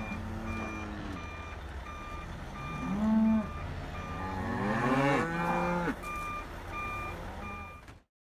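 Cattle mooing: several moos, the loudest a short one about three seconds in and a long rising-and-falling one about five seconds in. A steady electronic beep repeats about twice a second behind them.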